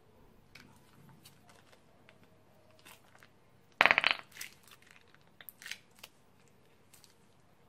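Pink slime squeezed out of a soft piping bag onto a glass dish: faint wet clicks, then about four seconds in a short, loud, rapid sputter as air spurts out through the slime at the bag's tip, followed by a few smaller wet pops.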